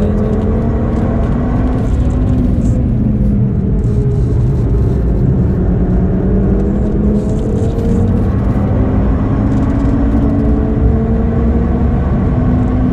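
2013 Audi TT RS's turbocharged 2.5-litre inline-five engine, tuned to about 405 hp, heard from inside the cabin under hard driving. The revs dip as the driver lifts for a bend, then climb under acceleration. Near the end there is one upshift from third to fourth gear, and the revs rise again.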